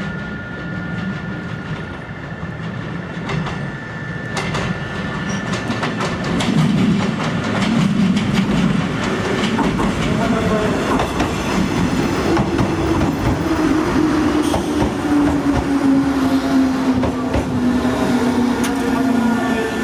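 JR Kyushu 103 series electric train pulling into the platform, its wheels clicking over the rail joints. It grows louder as it comes close, and its motor whine falls steadily in pitch as it brakes toward a stop.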